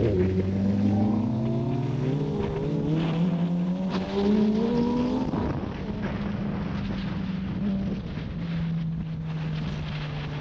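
Suzuki GSX-R sportbike's inline-four engine accelerating hard, its note climbing in pitch through a couple of upshifts over the first five seconds, then settling into a steadier, lower running note as the bike eases off, with wind and road noise.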